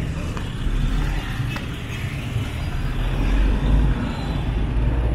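Street traffic: a steady low rumble of passing car engines that swells a little past the middle, with a couple of faint clicks early on.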